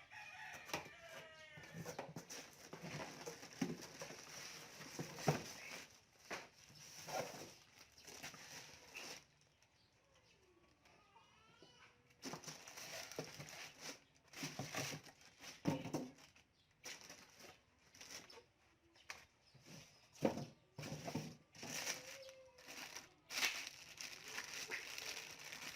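Rustling, scraping and knocks of packaging being handled and opened. Chickens cluck now and then in the background.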